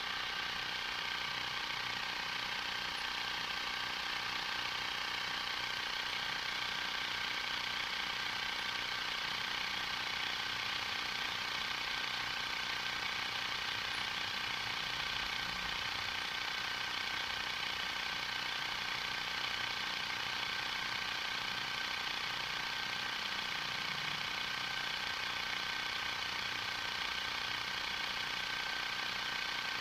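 Small portable tyre inflator's compressor running steadily while pumping up the repaired tubeless tyre.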